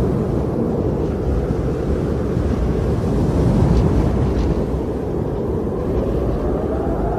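Strong wind blowing as a steady low rush. A whistling tone rises in pitch near the end.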